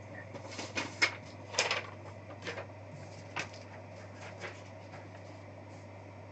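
A few short handling scrapes and knocks in the first few seconds, then only a steady low hum.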